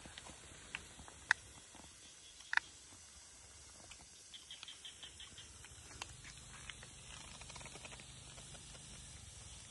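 Forest snails grilling in their shells on a hot rock over embers, giving faint crackling and a few sharp pops, the loudest two a little over a second apart. A quick run of faint ticks comes about four seconds in.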